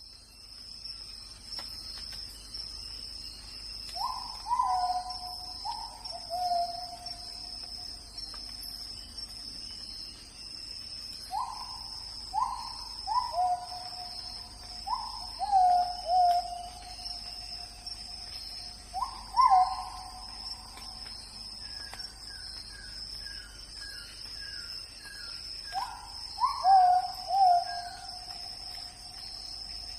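Forest ambience: a steady, high insect drone, over which a bird calls in several groups of loud notes that each drop in pitch and trail off, with a fainter run of short higher notes from another bird about two thirds of the way through.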